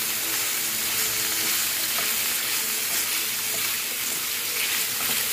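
Sliced pork liver sizzling steadily in a frying pan while a wooden spatula stirs it, with an occasional light click of the spatula against the pan.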